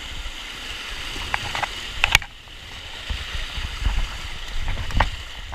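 Steady rush of fast river water at a small waterfall, with a few sharp knocks and splashes; the loudest knock comes about two seconds in.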